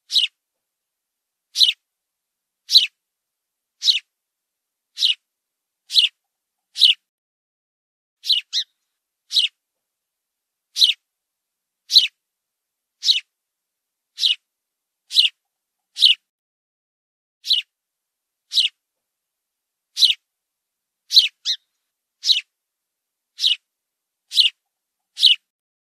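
House sparrow chirping: short, high, falling chirps repeated about once a second, a few of them coming in quick pairs.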